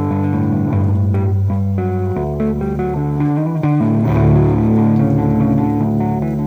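Instrumental guitar demo: guitar chords and notes ringing on, with low notes underneath, the harmony shifting about two seconds in and again about four seconds in.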